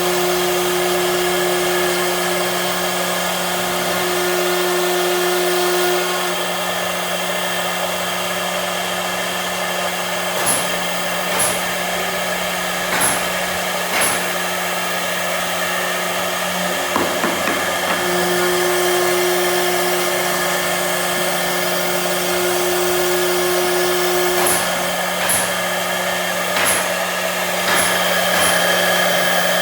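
CNC machine running: a steady motor hum, with a higher tone that holds for stretches of several seconds and then drops out. Short sharp clicks come now and then.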